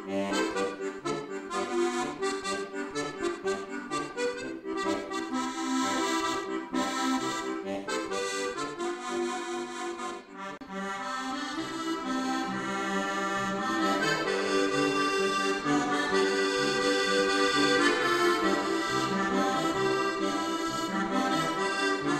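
Instrumental background music led by an accordion. It dips briefly about ten seconds in, then continues fuller and louder.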